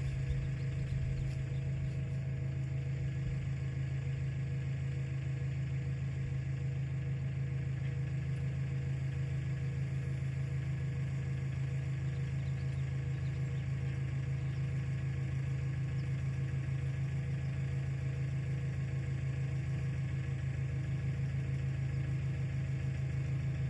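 Tractor engine running at a steady speed, driving a capstan winch, with an even, unchanging drone.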